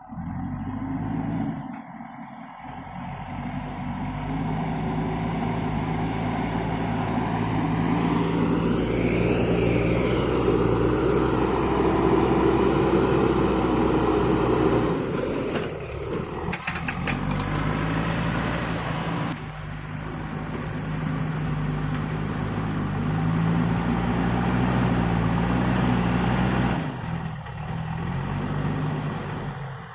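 JCB backhoe loader's diesel engine running under load, revving up and easing off as the machine works.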